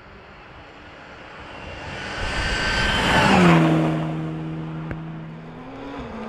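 Mitsubishi Lancer Evolution rally car at full speed on a snowy gravel stage. Its engine grows louder as it approaches, then passes about three seconds in with a sharp drop in pitch, and its steady engine note fades as it goes away. Near the end, the engine of the next rally car is heard approaching.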